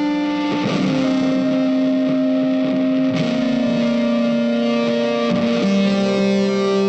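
Background music: sustained guitar chords with a distorted, effects-laden tone, changing every second or two.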